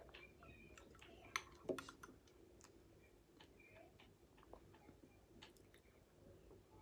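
Faint clicks of a metal spoon against a ceramic bowl while porridge is scooped, two sharper clicks about one and a half seconds in, with soft mouth sounds of eating.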